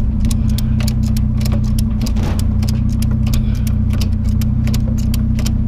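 A vehicle engine idling steadily, with the rapid clicking of a ratchet strap being cranked tight over a lawnmower.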